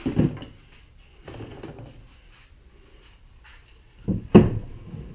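Wooden molding flask handled on a bench, wood knocking on wood: one knock at the start, a softer scrape-like sound about a second later, and two sharp knocks about four seconds in.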